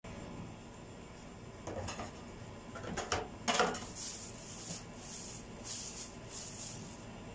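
Kitchen knife and cutting board clattering down into a stainless-steel sink: a few sharp knocks, the loudest about three and a half seconds in. After that comes a run of short, hissy swishes as they are handled in the sink.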